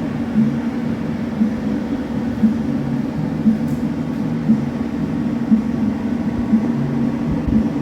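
TIG welding arc buzzing steadily, swelling about once a second.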